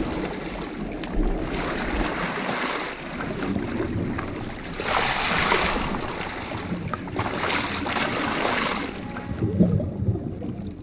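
Water rushing and splashing at the surface as whale sharks gulp in water while suction feeding, in three surges a couple of seconds apart. It goes quieter near the end, with a low thud.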